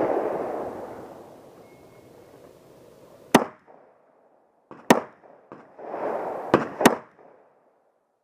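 Four pistol shots, spaced irregularly, the last two in quick succession. Wind buffeting the microphone makes a rushing noise at the start and again just before the last pair of shots.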